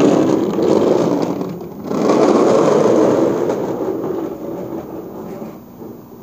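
Small plastic wheels of a ride-on swing car rumbling over a rough pebbled patio. The rolling noise is loud for the first few seconds with a short dip near two seconds, then fades as the car moves away.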